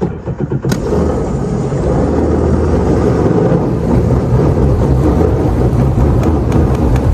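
Sea-Doo RXT-X 300 jet ski engine throttled up hard, with the jet pump churning water, as the ski powers off the shallow bottom where it was stuck. It comes in suddenly and then runs loud and steady.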